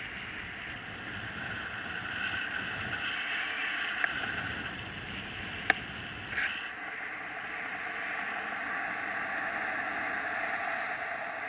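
Steady rush of airflow over the camera of a paraglider in flight, with a few sharp clicks about four and six seconds in.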